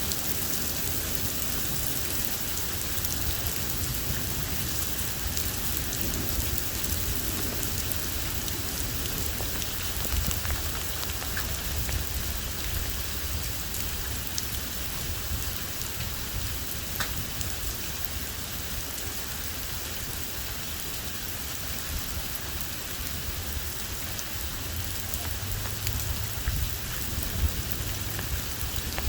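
Heavy rain pouring steadily in a thunderstorm, with scattered sharp taps and a low rumbling that swells about a third of the way in and again near the end.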